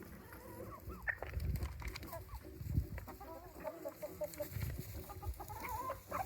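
Chickens clucking, with many short, wavering calls overlapping, over low rumbling bumps.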